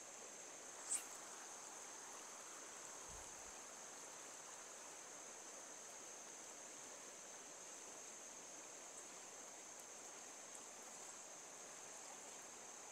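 Faint, steady outdoor ambience: a thin, high, continuous insect buzz over a soft wash of flowing river water, with one short sharp tick about a second in.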